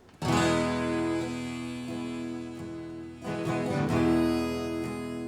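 Acoustic guitar strumming the song's intro: a chord struck and left to ring, then a fresh strum a little over three seconds in.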